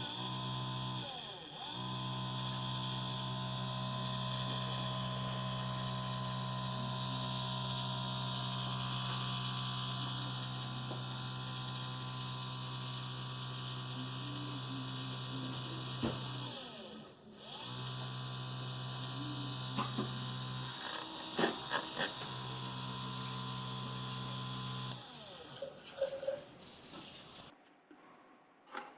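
The 775 DC motor of a homemade drill press running with a steady hum. It stops and starts again twice, its pitch sliding down and back up each time, and a few sharp clicks come about three-quarters of the way in.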